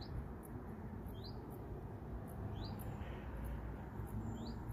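A small bird giving short rising chirps, four in all, each a second or two apart, over a low steady outdoor rumble.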